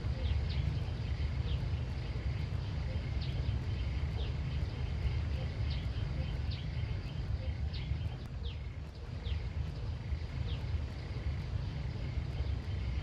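Rural outdoor ambience: a steady low rumble under a steady high hum, with short high chirps that fall in pitch, repeated about once a second.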